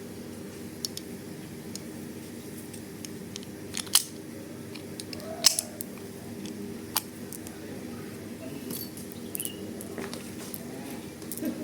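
Scattered sharp clicks and knocks from plastic toy guns being handled, over a steady low hum.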